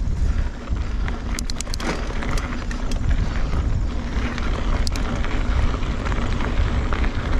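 Kona Honzo hardtail mountain bike rolling along a dirt singletrack, heard from a chest-mounted action camera: a steady rush of wind on the microphone and tyre noise on the dirt. A cluster of sharp clicks and rattles from the bike comes about a second and a half in, and another near five seconds.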